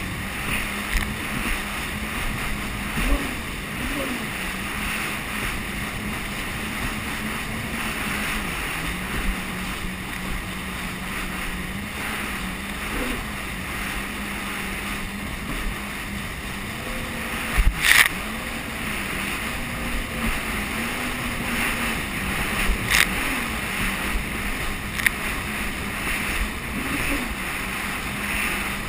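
Jet ski engine running at a fairly steady speed, its note rising and dipping slightly, under a constant rush of wind and water. A loud sharp slap comes about two thirds of the way through, and a smaller one a few seconds later.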